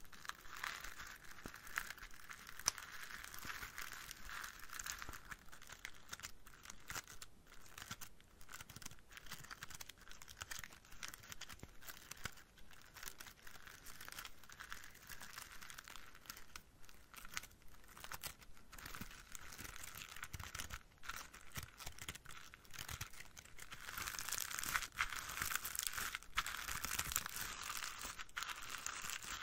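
Spiky plastic leaves of an artificial potted plant rustling and crinkling as fingers rub and squeeze them close to the microphone, louder and fuller in the last few seconds.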